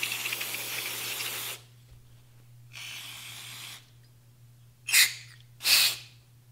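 Aerosol can of non-chlorinated brake parts cleaner spraying through its extension straw onto a rifle bolt carrier. A long hiss stops about a second and a half in, a shorter, softer spray follows around three seconds, then two short, louder bursts near the end.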